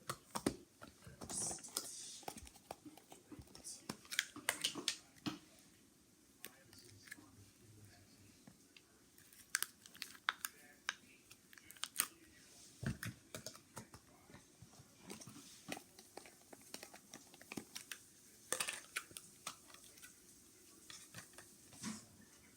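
Slime being handled: squished, poked and stretched, making many irregular sticky clicks and small pops.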